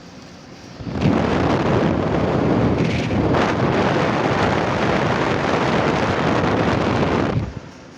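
Air blowing straight onto the microphone, a loud rushing that starts suddenly about a second in and cuts off suddenly shortly before the end, over the steady run of an Everstar portable air conditioner.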